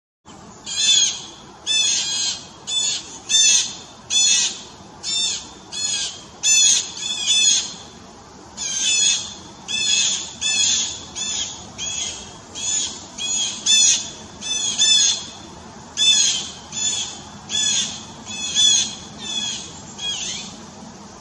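A bird repeating short, harsh, high-pitched calls about twice a second, with a brief pause about eight seconds in.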